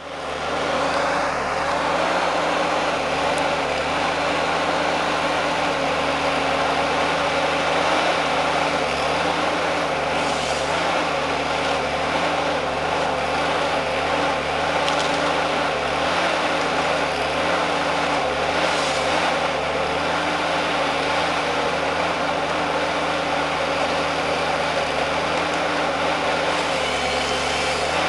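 Tree harvester's diesel engine running steadily, its pitch wavering slightly up and down.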